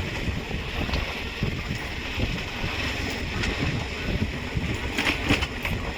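Wind buffeting the microphone over the steady low rumble of a vehicle travelling along a paved road.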